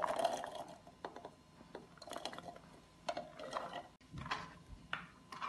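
Boiled green peas tipped from a plastic tub into a plastic blender jar, pattering and clicking against the plastic in a first burst and then in several smaller bursts as the last peas are shaken out.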